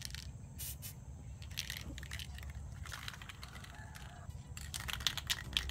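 Aerosol spray can of Samurai epoxy grey primer hissing in short bursts, the bursts coming closer together near the end.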